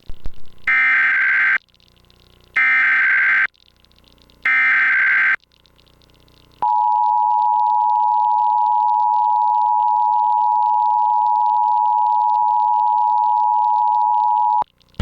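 Emergency Alert System required monthly test header: three one-second bursts of SAME digital data tones, a second apart, then the two-tone 853 and 960 Hz attention signal held steady for about eight seconds before cutting off sharply.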